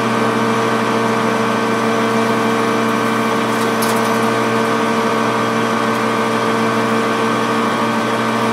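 Metal lathe running steadily with a constant motor and gear whine as it turns a 1018 steel bar down to size.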